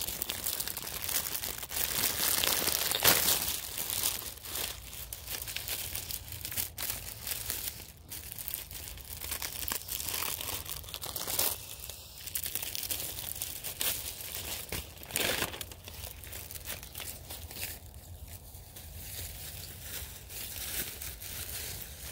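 Thin paper of a sky lantern crinkling and rustling in irregular crackles as it is handled and unfolded.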